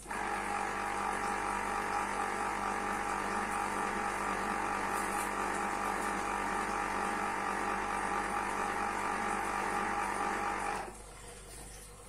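Electric lever-arm citrus press motor spinning its reamer cone while a lemon half is held pressed down under the arm. It starts suddenly, runs steadily with a whirring hum, and cuts off about eleven seconds in when the pressure comes off.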